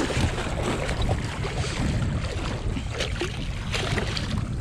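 A hooked dorado splashing and thrashing at the water's surface, in several short splashes, over a steady low rumble of wind and water.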